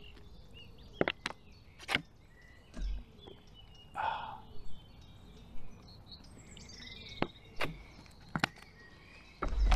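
Small birds chirping faintly, with a handful of sharp clicks and knocks scattered through and a brief rushing sound about four seconds in.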